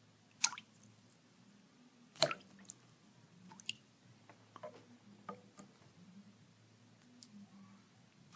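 Water drops falling one at a time at irregular intervals, each a short plink. Two drops stand out louder, about half a second and two seconds in, with several fainter ones between and after.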